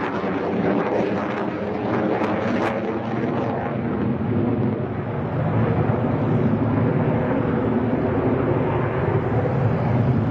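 JF-17 Thunder fighter's single Klimov RD-93 turbofan roaring overhead in a display pass. It crackles at first, then settles into a louder, steadier rumble from about halfway through.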